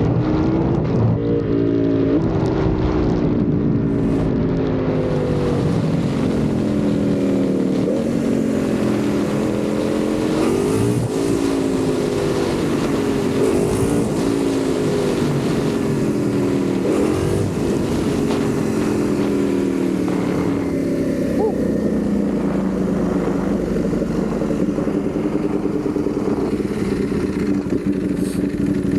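Ducati Panigale V4 sport bike's V4 engine under way. Its revs fall slowly and jump sharply every few seconds, then hold steadier near the end.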